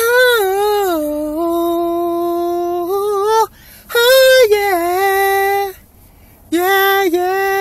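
A solo voice singing a cappella in three long held phrases separated by short breaths; the first phrase slides down in pitch and then settles on a sustained note.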